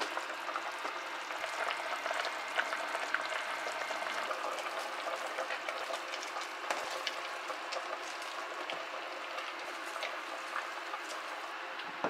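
Broth of Korean braised short ribs (galbi-jjim) bubbling and crackling in an open pot, with scattered light clicks and taps as chopped onion and chili are dropped in by hand.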